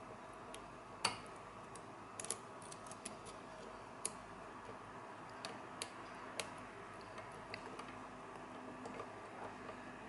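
Hairclip lockpick and tension tool working the pins of a brass Master padlock: faint, irregular small metal clicks and ticks, the sharpest about a second in.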